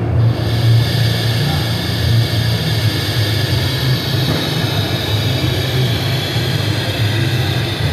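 LokSound 4.0 sound decoder in a Philotrain model of the Dutch NS 6300 steam locomotive, playing a steady steam hiss that starts abruptly over a low, uneven rumble.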